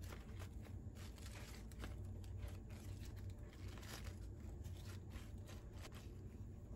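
Faint crisp rustling and crinkling of fresh green leaf lettuce leaves being laid and pressed onto slices of bread by hand, over a low steady hum.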